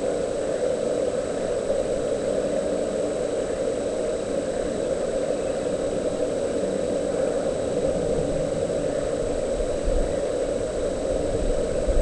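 Steady droning hum with a faint high whine, broken by a couple of soft low thumps near the end.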